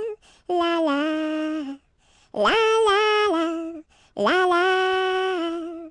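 A single high voice singing a wordless 'la la' tune unaccompanied, in three held phrases with short breaths between them; the last phrase fades out at the end.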